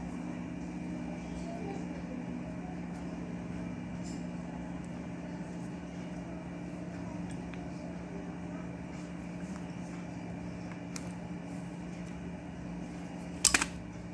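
Small hand-tool and wire handling clicks over a steady low hum, then a sharp clatter of two or three quick knocks near the end, as wires are stripped and fitted on a ceiling fan under repair.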